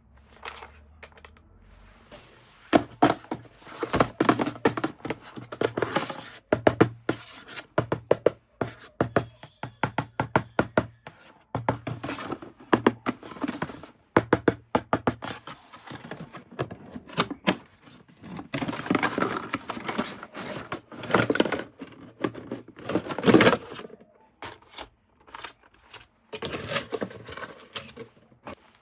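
Handling of a toy and its packaging at close range: an irregular run of sharp clicks, knocks and scrapes, with stretches of rustling.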